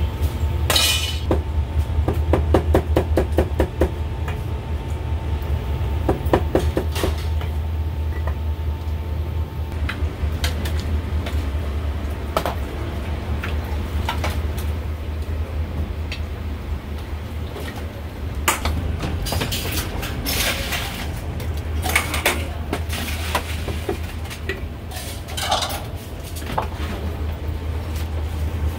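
Metal tongs and a ladle clinking and clanking against stainless-steel pots, trays and bowls, with runs of rapid clicks a couple of seconds in and again a few seconds later, then scattered single clanks. A steady low hum runs underneath.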